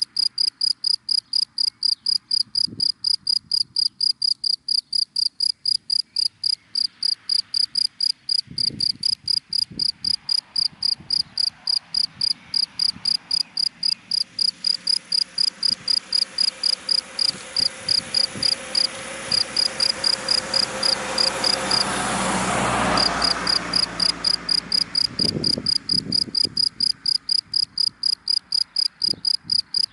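A cricket chirping in a steady rhythm, about three high chirps a second. A car passes through the middle, its noise swelling slowly to a peak and fading quickly.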